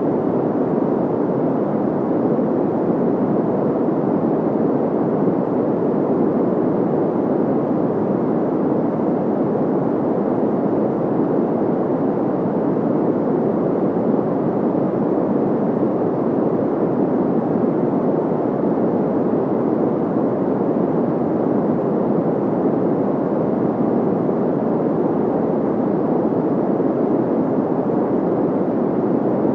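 Steady, unchanging white-noise sound effect: an even rushing hiss, weighted low with little treble.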